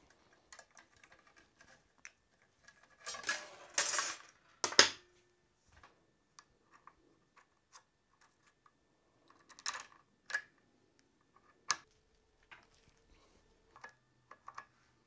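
Steel brake line and a flaring tool being handled and set up in a bench vise: scattered small metal clicks and clinks, with a scraping rustle about three seconds in, a sharp metal clank near five seconds, and a few more sharp clicks around ten to twelve seconds.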